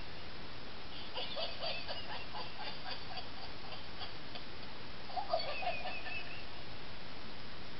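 Battery-operated plush laughing toy dog going off: two short bursts of a tinny, rapidly repeating electronic laugh, about a second in and again about five seconds in, over a steady hiss.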